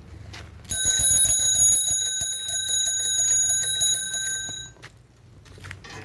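Small bicycle bell rung rapidly and continuously for about four seconds, starting about a second in and then stopping.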